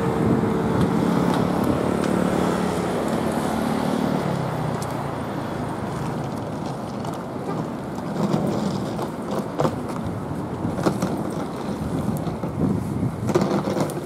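A car passing close by on the road, its engine hum dropping in pitch about four seconds in as it goes past. After that come general street noise and a few light knocks.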